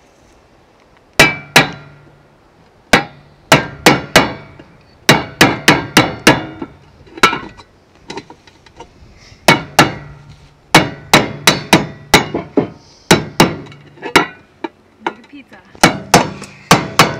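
Claw hammer striking a chisel to cut slits through the lid of a large tin can: sharp metallic strikes in irregular runs of two to four, each with a short ring from the can.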